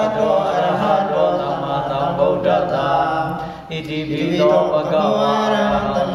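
Theravada Buddhist monks chanting in low male voices, a steady sung recitation on sustained pitches, with a brief breath pause a little past the middle.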